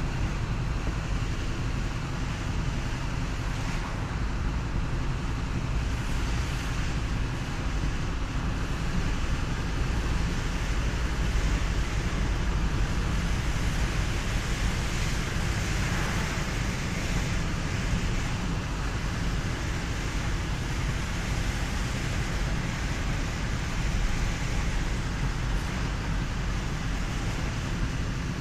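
A car driving in the rain: a steady low road and engine rumble under an even hiss of rain and tyre spray on the wet road, with a brief swell of hiss about halfway through.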